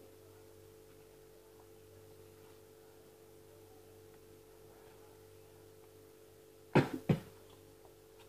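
Steady faint electrical hum, broken near the end by two sharp knocks close to the microphone, about a third of a second apart, as playing cards are stood upright on a floor.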